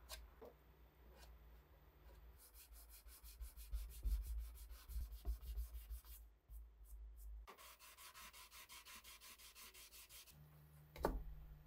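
Hand-sanding dried wood filler on a wooden case with a small sanding block: two spells of quick, even back-and-forth rasping strokes, about six a second. A single knock follows near the end.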